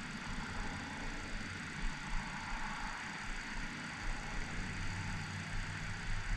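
Wind buffeting the microphone: a steady rushing noise with an uneven low rumble underneath.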